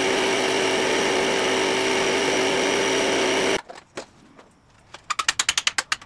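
A small electric motor running steadily with a buzzing hum, stopping abruptly about three and a half seconds in. Near the end, a fast, even run of about a dozen sharp clicks lasting about a second.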